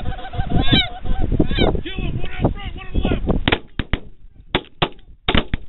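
Goose honking, then a rapid volley of 12-gauge semi-automatic shotgun blasts, about six or seven shots in two seconds, starting about three and a half seconds in.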